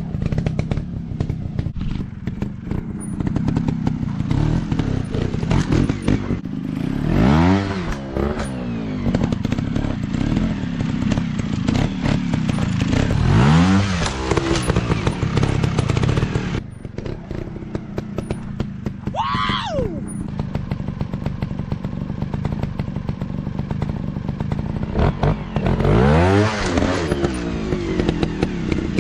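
Dirt bike engines running with a continuous low drone, over short knocks and clatter. The revs climb and fall back four times.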